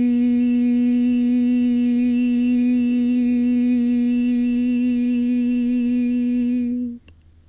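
A woman's voice chanting the syllable 'ri' as one long held note at a steady pitch, vocalized during a mudra practice; it stops about seven seconds in.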